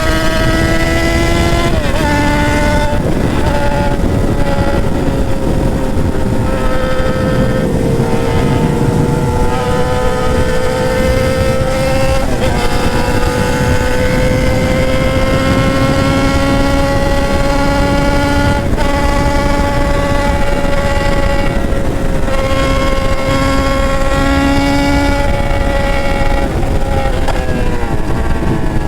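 Motorcycle engine running under way at steady high revs, its note drifting slowly and dipping briefly a few times before picking up again, over constant wind rush.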